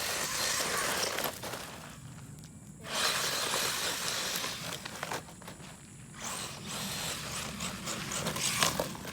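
Gravelly scrabbling noise in three bursts of a second or two each, with short gaps between, from a 1/16-scale RC truck's tyres churning over rubble and loose ground.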